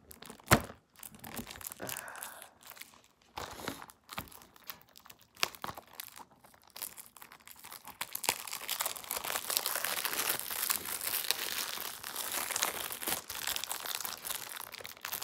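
Plastic shrink wrap on a Blu-ray case crinkling and tearing as it is picked at and peeled off by hand. Scattered crackles at first, then continuous crinkling from about halfway through.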